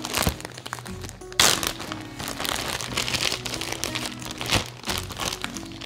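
Plastic zip-top bag crinkling as it is handled and opened to get the dough out, with background music playing.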